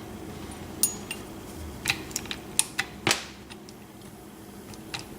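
An old renter key being pushed into and worked in the keyway of an antique Yale safe deposit lock, giving a scattered series of sharp metal clicks and clinks. The key is one that doesn't work well in the lock.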